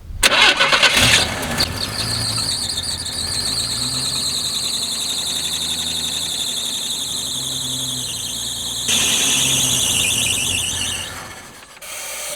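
Chevy small-block 350 V8 cranking over on its starter without firing, with a loud high-pitched squeal throughout; it gets louder near the end, then winds down and stops about eleven seconds in.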